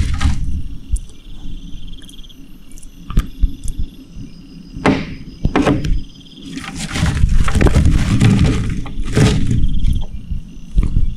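Knocks and rustling bursts with a low rumble, loudest in the second half, over the steady high trill of an insect.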